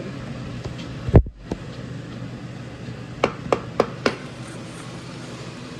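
Kitchen clatter over a steady low hum: one sharp knock about a second in, then four quick taps in under a second, like a utensil knocking against cookware.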